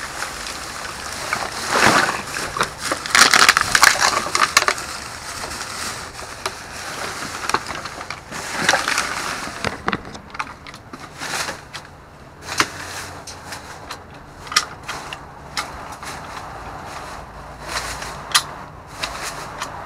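Clear plastic trash bags crinkling and rustling as they are grabbed and shifted inside a dumpster. The rustling is dense in the first half, then gives way to scattered clicks and knocks.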